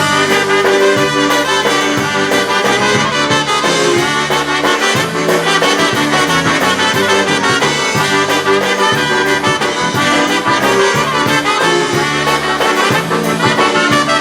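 Live band playing an instrumental break of an oberek, a fast Polish folk dance tune, with brass horns leading over a steady bass and drum beat.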